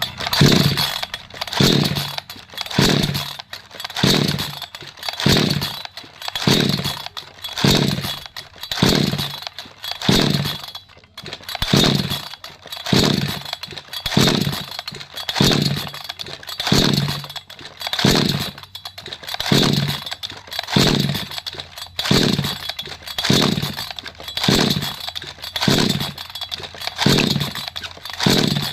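F-5850 two-stroke chainsaw being cranked over and over on its pull-start cord, about one pull a second, each pull a short whirring, chugging burst that falls away as the engine turns through compression without firing. This is a compression check.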